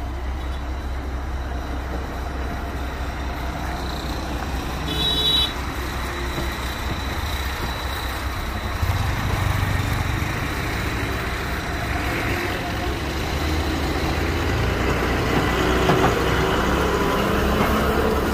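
Heavy truck's diesel engine idling with a steady low rumble, with road noise growing louder from about halfway through. A brief high-pitched beep sounds about five seconds in.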